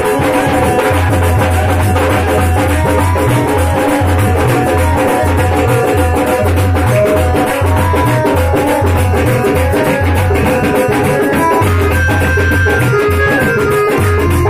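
Live devotional jagran music: hand-played dholak drums keeping a fast steady beat under a keyboard melody.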